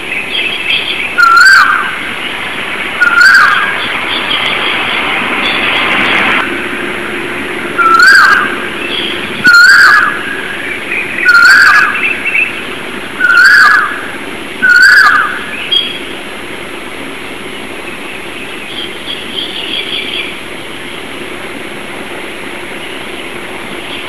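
Birds chirping and twittering. One bird repeats a loud short call seven times in the first fifteen seconds over continuous softer chatter from others, and the chatter thins out after that.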